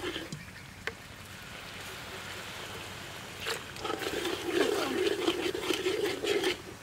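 Oil sizzling in a wok as chopped aromatics fry and are stirred with a metal ladle, with a sharp click a little under a second in. From about three and a half seconds a louder wavering vocal sound takes over until shortly before the end.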